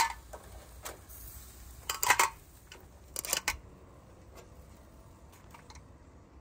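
Flat metal kabab skewers clinking and clacking as they are handled: a scatter of sharp metallic clicks, bunched around two and three seconds in, then it goes quiet.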